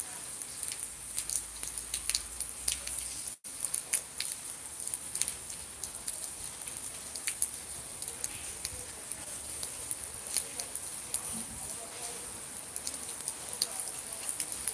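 Rain falling, with many drops pattering and ticking close to the microphone over a steady hiss; the sound cuts out for an instant about three seconds in.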